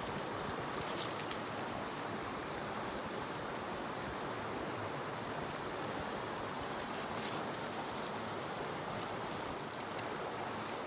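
Steady rush of a river flowing, with a few faint clicks about a second in and again around seven seconds.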